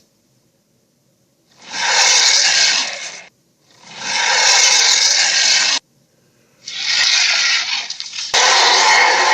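Four harsh, raspy monster roar sound effects, each lasting one to two seconds with short silent gaps between them; one cuts off abruptly, and the last runs on past the end.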